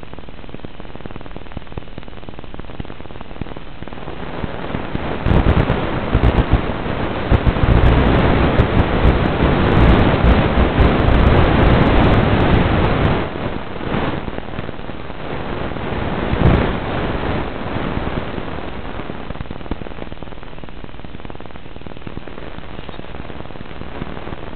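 Hiss and static from an analog FPV video receiver's audio channel. It turns into loud crackling from about five to thirteen seconds in, as the video link breaks up, then settles back to a steady hiss.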